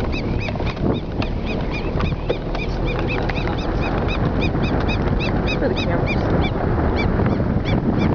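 Safari vehicle moving over rough grassland: a steady low rumble with a rapid train of high chirping squeaks, about four a second.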